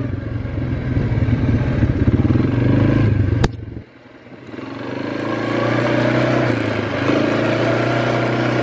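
Quad bike engine running while riding. About three and a half seconds in there is a sharp click and the sound drops off suddenly, then builds back up with a slowly rising pitch as the bike picks up speed again.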